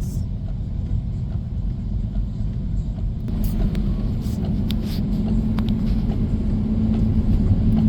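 Car driving, heard from inside the cabin: a steady low road rumble, with a steady hum coming in about three seconds in and growing louder.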